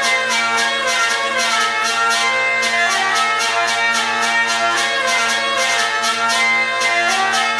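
Hurdy-gurdy playing a French branle tune: steady drones under a melody fingered on the keys, with a regular rhythmic pulse from the crank, about four strokes a second.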